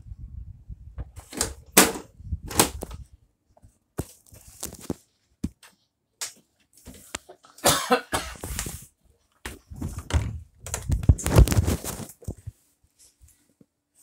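Handling noise from a phone being moved about by hand: a low rumble at first, then irregular knocks, rustles and thumps that die away near the end.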